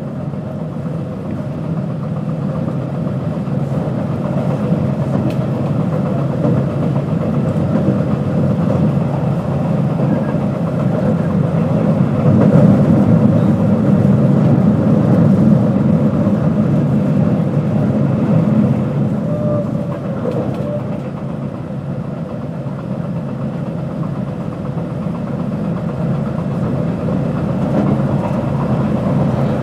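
JR West 221 series electric multiple unit with field-added excitation control running between stations: a steady rumble of wheels on rail and running gear with a faint motor hum. It grows louder toward the middle, eases off about two-thirds of the way through, then builds again near the end.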